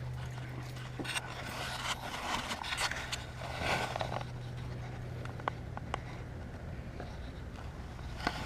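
Scraping and rubbing handling noises with a few sharp clicks, over a steady low hum that weakens a little about two seconds in.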